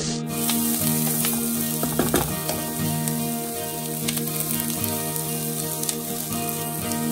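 Diced onion, carrot and cherry tomatoes sizzling in oil in a nonstick pan as they are stirred with a wooden spatula, with short scrapes of the spatula on the pan and a louder stir about two seconds in. Soft background music with held notes underneath.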